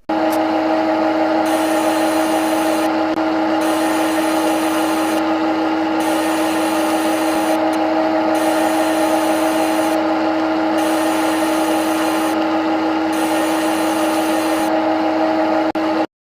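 CNC lathe running at a constant speed: a steady, unchanging motor whine, with a higher hiss that comes and goes about every one and a half seconds. It starts and stops abruptly.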